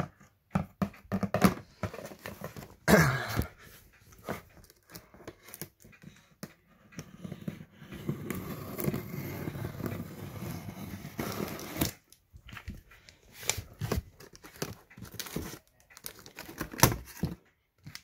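Scissors slitting clear packing tape along the top of a cardboard box, with scraping and crinkling of the tape. Clicks and knocks come from the box being handled, and a longer stretch of steady scraping falls near the middle.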